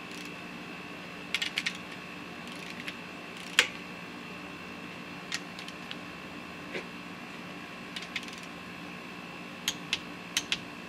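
Scattered metallic clicks and clinks of hand tools working on a Chevy 350 small-block engine as its pistons and rods are fitted, over a steady background hum. There is a quick cluster of clicks early on, a sharper clank about three and a half seconds in, and several clicks close together near the end.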